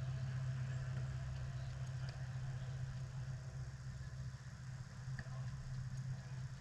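A steady low hum, with a few faint short knocks over it.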